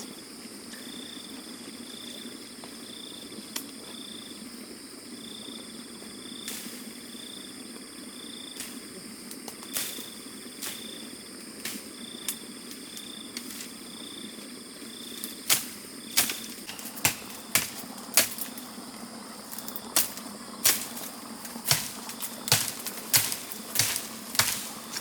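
Insects chirping in an even pulsing rhythm over a steady background hum. About halfway through, sharp knocks like chopping or hammering start, at first about one a second and then faster near the end.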